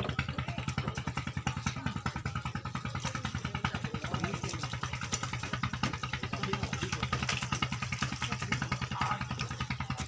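A small engine running steadily, with a fast, even pulse.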